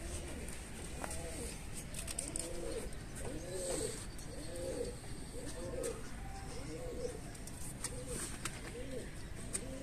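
Pigeon cooing: a low, rising-and-falling coo repeated about once a second, with faint scattered clicks alongside.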